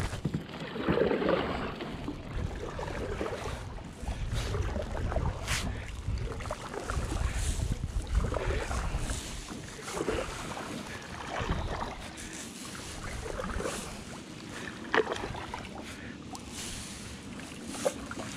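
Double-bladed kayak paddle dipping and pulling through calm river water in steady strokes, swishing and splashing about every one and a half to two seconds. There are a few sharp knocks, the loudest about fifteen seconds in.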